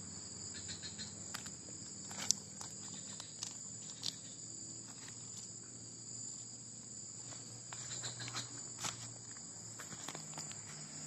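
Steady high-pitched chorus of insects. Scattered light clicks and rustles of dry leaves and grass being stepped on or handled run over it, the sharpest click about two seconds in.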